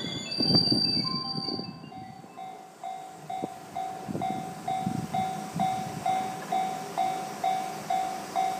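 Japanese railway level crossing warning bell ringing in a steady repeating ding about twice a second, with the barrier down for an approaching train. In the first second or so, before the bell, a louder low rumble.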